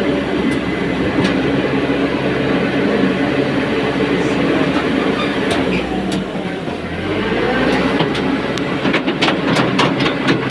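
Diesel engine of a self-loading concrete mixer running steadily, its note dipping briefly past the middle. From about two-thirds of the way in, a quick clatter of knocks joins it, about four a second.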